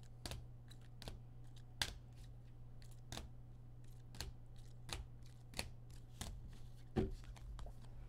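Trading cards being handled and shuffled through, a string of faint, sharp clicks and taps at an irregular pace, over a steady low hum.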